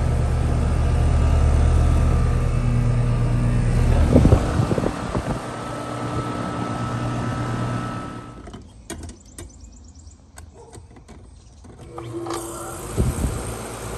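Air conditioner outdoor units running and starting up. A steady low compressor hum changes about four seconds in, then drops to a quiet stretch with scattered clicks. Near the end another unit starts with a short tone and a few jolts, then runs on with a steady hum.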